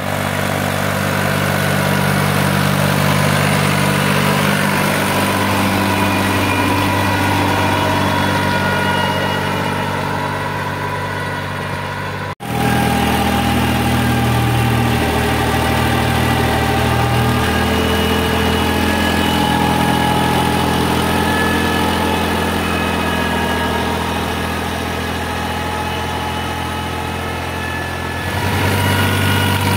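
New Holland 3600-2 tractor's three-cylinder diesel engine running steadily. The sound drops out for an instant about twelve seconds in and picks up again.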